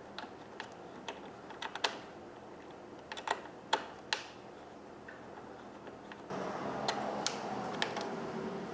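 Light, irregular clicks and taps of a hex key and small metal parts while the mirror mounting bolts are undone. A steady low hum comes in about six seconds in.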